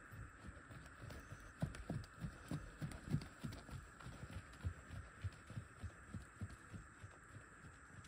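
Japanese pony's hooves trotting on a soft dirt arena: dull, even thuds about three a second, with a few sharper knocks between about one and a half and three seconds in. A faint steady hum runs underneath.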